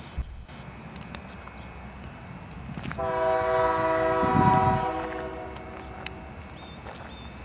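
Union Pacific locomotive horn sounding one long blast of several tones at once, starting about three seconds in and lasting about two and a half seconds, with a low rumble swelling under it near its loudest point.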